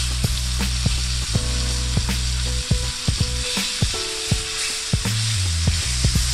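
Ribeye steak sizzling steadily as it sears on its second side in a hot, oiled stainless steel pan, with metal tongs clicking against it as it is moved. Background music with a bass line runs underneath.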